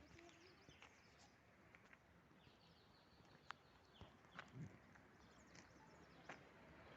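Near silence: faint outdoor background hiss with a few scattered faint clicks and high chirps.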